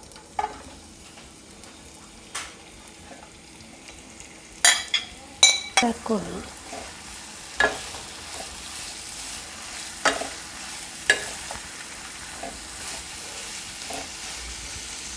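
Shredded cabbage sizzling in hot oil in a pan while being stirred with a spoon. The spoon clinks sharply against the pan a few times, and the sizzle grows louder about five seconds in.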